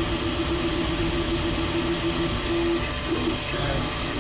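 FDM 3D printer printing: its stepper motors whine steadily as the print head moves. About three seconds in, the steady tone breaks off into shorter, changing tones as the head changes moves.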